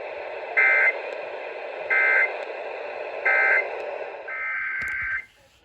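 Emergency Alert System end-of-message data bursts ("NNNN"): three short warbling digital bursts about 1.3 s apart over radio hiss. Near the end comes a longer burst of the same data tones, the start of the next alert's SAME header.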